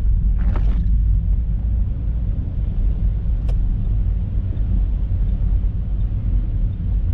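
Car driving on the road: a steady low rumble of engine and tyres, with a short hiss about half a second in and a single click about three and a half seconds in.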